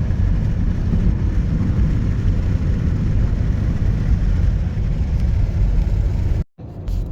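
Steady low rumble of a car driving, engine and tyre road noise heard from inside the moving car. The sound drops out abruptly for a split second near the end.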